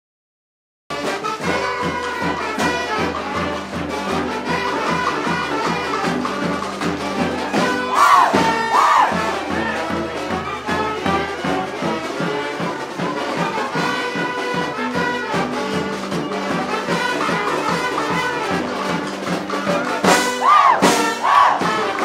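Brass street band playing, starting abruptly about a second in: trombones and trumpets over a steady beat of bass drum and snare. Twice, about 8 seconds in and again near the end, a loud sliding call rises above the band.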